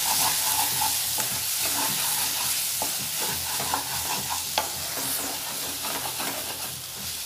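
Thick ground-masala gravy with small onions sizzling in a steel kadai while a spatula stirs and scrapes through it, with scattered clicks of the spatula against the pan, the sharpest about four and a half seconds in. The masala is well fried down.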